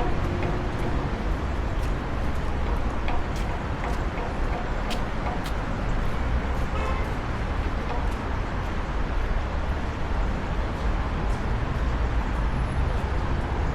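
Steady street traffic noise, an even low rumble with a few faint clicks over it.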